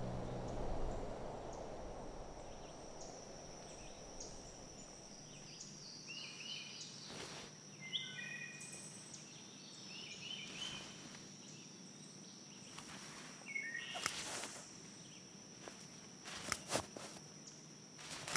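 Faint outdoor ambience with birds chirping in short calls over a steady, thin high tone. A few sharp clicks and taps come near the end.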